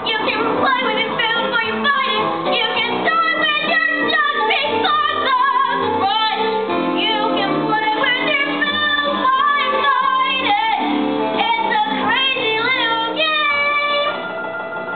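A song: a singing voice over lively musical accompaniment, dropping in level about a second before the end.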